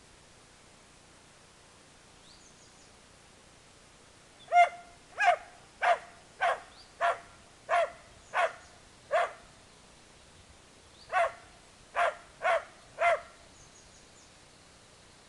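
Dalmatian barking angrily: after a quiet start, a quick run of eight barks, a pause of about two seconds, then four more.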